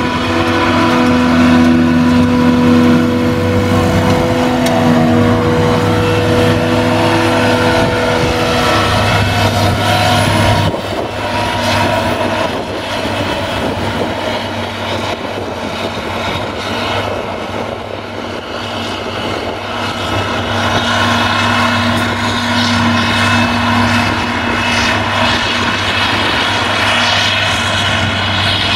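Claas Jaguar self-propelled forage harvester at work, picking up and chopping grass and blowing it into a trailer: a loud, steady machine drone with several held tones. The sound shifts abruptly about ten seconds in, then drops slightly and builds again toward the end.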